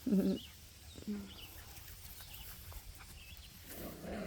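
Miniature American Shepherd puppies vocalizing at play: a short call at the start, a shorter one about a second in, and a rough growl-like noise near the end, with faint bird chirps in the background.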